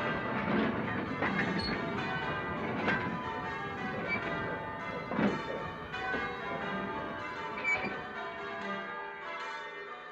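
Church bells ringing, strike after strike, their tones overlapping and ringing on.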